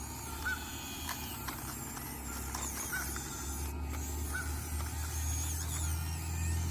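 Motor of a radio-controlled Bruder CAT model excavator running with a steady hum that grows louder toward the end. Faint bird chirps sound in the background.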